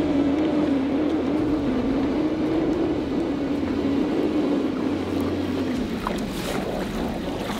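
Electric trolling motor on a bass boat's bow running with a steady, slightly wavering hum, which stops about six seconds in.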